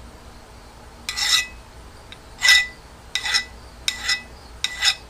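A hand file rasping across the steel tip of a homemade welding chipping hammer in five strokes, about one every 0.7 seconds, each leaving a brief metallic ring. The file grabs and digs into the metal, the sign that the tip is still soft and not yet hardened.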